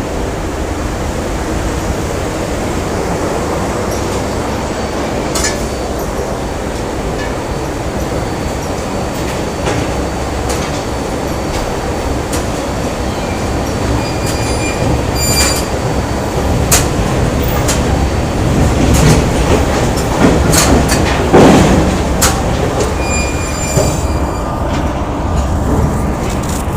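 Factory machinery ambience: a steady heavy rumble with scattered metallic clanks and short high squeals, getting louder and busier in the second half, with its loudest burst about three quarters of the way through.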